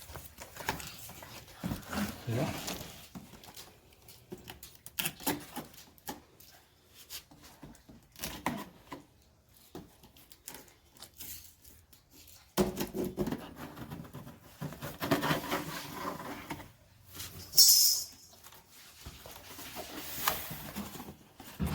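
Cardboard speaker box being opened and its packing handled: scattered rustles, scrapes and knocks, with a brief sharp tearing or scraping noise about 18 seconds in.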